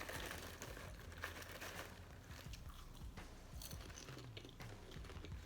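A person chewing crunchy popcorn close to the microphone: faint, irregular crunching clicks.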